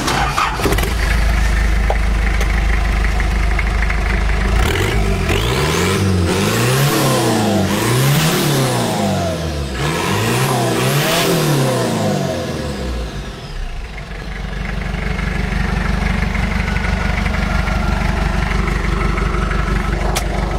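Turbocharged engine of a modified Datsun 620 pickup starting up, then revved several times in quick blips from about five to twelve seconds in, its pitch rising and falling with each blip. It then settles back to a steady idle.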